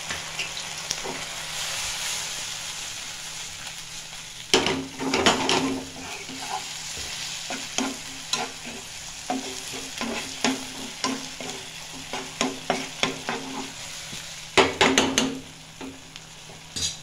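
Diced onions, capsicum and chillies sizzling with sauce in a non-stick frying pan. About four seconds in, a spatula begins stirring and scraping the pan in quick repeated strokes, heaviest near the start and near the end of the stirring.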